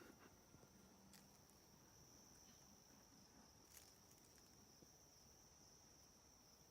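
Near silence with a faint, steady, high-pitched insect trill, likely crickets, and two faint clicks about a second in and near the four-second mark.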